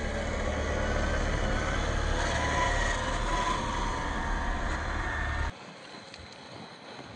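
Small electric RC crawler motor whining over a steady rumble of wind on the microphone; the sound drops suddenly to a much quieter hiss with a few clicks about five and a half seconds in.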